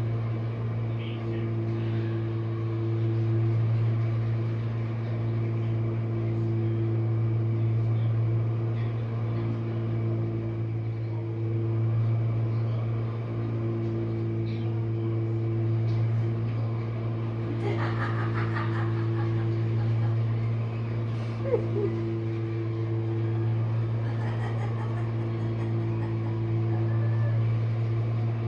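Jenn-Air dishwasher running mid-cycle: a steady, even motor hum.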